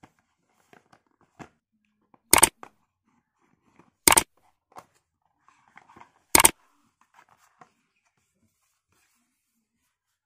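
Cardboard phone box being opened by hand: faint rustles and small clicks, with three short, loud, sharp noises about two seconds apart.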